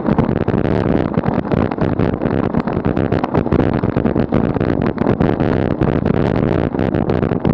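Road and wind noise from a bicycle riding on asphalt, with wind buffeting the camera microphone in loud, uneven gusts and crackles.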